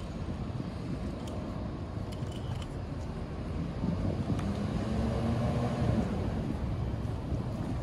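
Street traffic: a steady low rumble of road vehicles, growing louder as a motor vehicle passes close about four to six seconds in.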